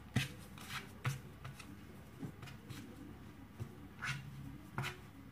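Hands working soft bread dough on a floured plastic placemat: quiet, irregular pats, slaps and rubbing, with a few sharper taps.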